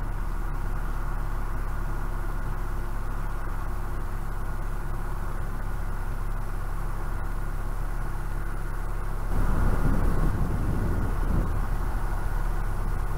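Narrowboat engine running steadily at slow cruising speed, a low even hum. About nine seconds in, a louder rushing noise swells for a second or so.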